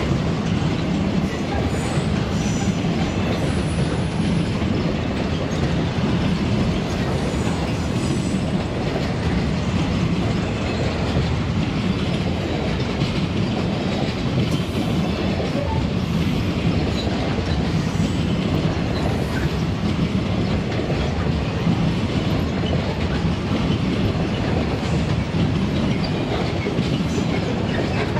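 Freight train wagons rolling past, a steady loud rumble of steel wheels on the rails with clickety-clack over the rail joints. A faint high wheel squeal comes in now and then.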